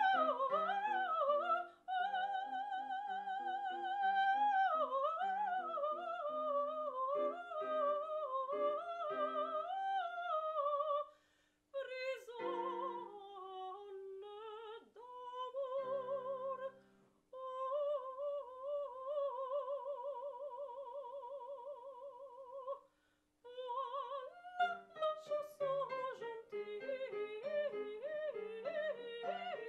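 A classical soprano singing an opera aria with wide vibrato over piano accompaniment, the voice breaking off briefly three times between phrases.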